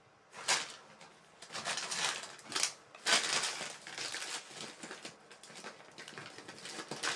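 Cardboard packaging and paper inserts being handled: a run of irregular rustles and scrapes, loudest about half a second in and again about three seconds in.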